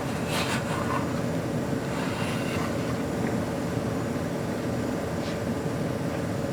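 Steady low hum and hiss of room noise with a faint constant tone, and a few faint brief rustles of handling, the clearest about half a second in.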